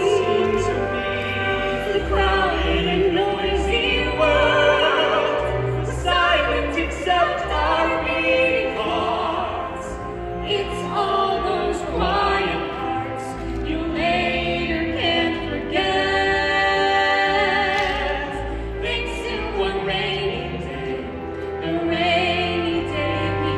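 Musical-theatre singers with instrumental accompaniment, holding long notes with vibrato.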